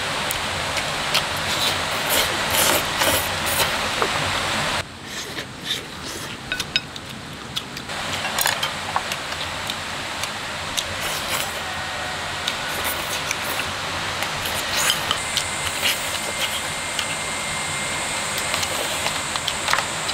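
A person eating: meat pulled apart by hand and chewed, with scattered short clicks from chopsticks, over a steady background hiss. A faint steady high tone joins about fifteen seconds in.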